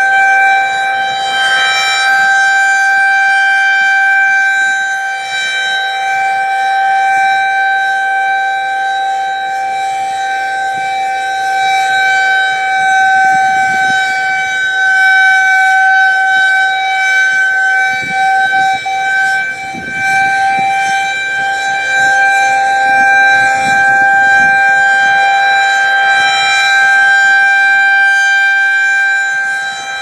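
Federal Signal 2001 single-tone electromechanical rotating siren sounding a steady tone during a test, held at one pitch. It grows louder and softer as the horn rotates.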